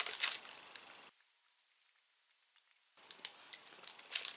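Plastic candy wrapper crinkling in the hands, dying away about a second in; a stretch of dead silence follows, then faint crinkling starts again near the end.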